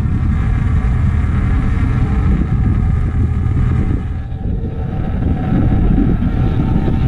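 Fishing boat's engine running steadily under way, a constant low rumble with wind and water noise over it.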